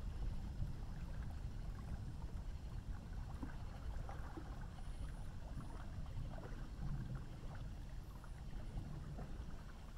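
Outdoor river ambience at night: a steady low rumble with faint scattered ticks and splashes of water.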